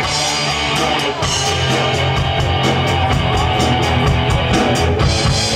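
Live rock band playing: amplified electric guitars over a drum kit, with sustained low notes and steady, evenly spaced cymbal and drum hits.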